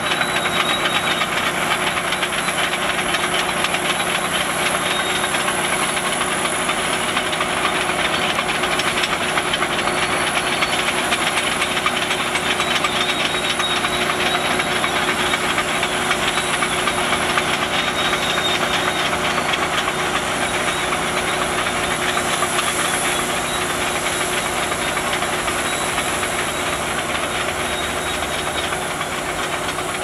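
Shantui SD22 crawler bulldozer ripping dirt with its rear ripper: the diesel engine runs steadily under load amid a loud, dense mechanical clatter and hiss, getting slightly quieter near the end.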